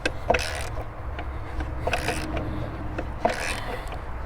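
Wrench work on the mounting nuts of a steel chainsaw carrier: scattered metal clicks and short scraping strokes about a second apart, over a low steady hum.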